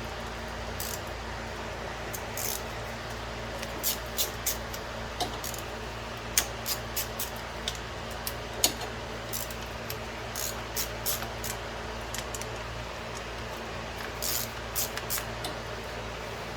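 Irregular metallic clicks and clinks of hand tools and engine parts being handled while taking an ATV engine apart, over a steady low hum.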